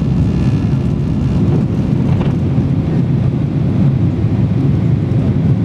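Boeing 737-800's CFM56-7B turbofan engines at takeoff thrust, heard from the cabin over the wing: a loud, steady, deep rumble as the airliner lifts off and climbs.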